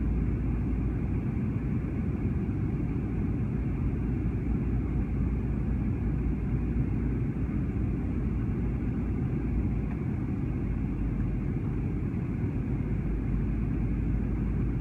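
Steady low rumble of an airliner's cabin: the even roar of engines and air heard from inside the plane.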